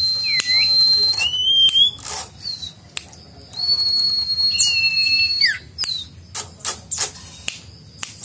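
Caged sirtu, a small white-eye songbird, singing learned oriental magpie-robin (kacer) song. Long steady high whistles alternate with short falling and rising notes and sharp clicks, and the song pauses briefly twice.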